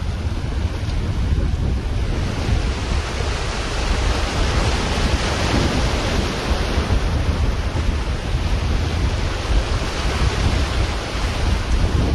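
Wind buffeting the microphone: a steady low rumble under a broad hiss, with no distinct events.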